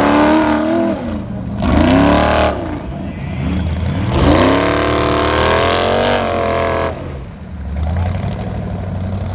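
Formula Offroad buggy's engine revving hard in three bursts, the revs rising and falling, as it claws up a steep dirt hillclimb. The revs drop to a lower, steady rumble about seven seconds in.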